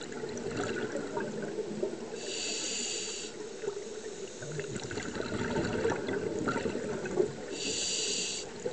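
Scuba divers breathing through regulators underwater: a steady crackle and bubbling of exhaled bubbles, with two hissing inhalations through a regulator about five seconds apart, one about two seconds in and one near the end.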